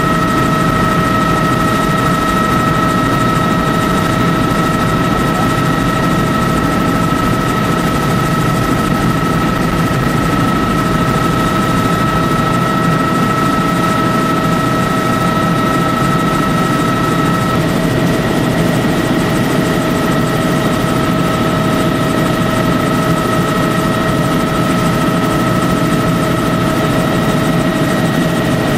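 Helicopter engine and rotor noise heard from inside the cabin: a steady, loud drone with a high, steady whine over it. The whine softens a little a bit over halfway through.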